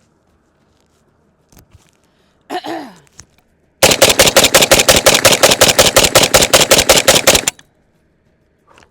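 Zastava ZPAP92 AK pistol in 7.62×39 fired in rapid semi-automatic succession: a string of about two dozen shots at roughly seven a second. The string starts about four seconds in and lasts some three and a half seconds.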